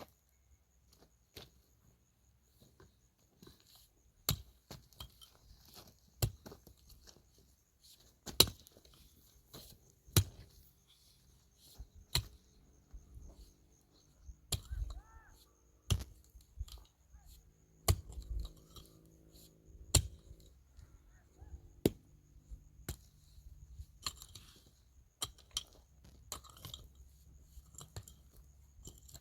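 A series of sharp knocks, about one every two seconds, with smaller clicks and scrapes between them and a faint low droning tone through the middle stretch.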